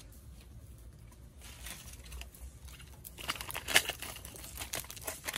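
Dry mustard-green seed pods and stalks crackling and rustling as they are cut with scissors and handled over a tray. The crackling gets busier about three seconds in, with one sharp snap.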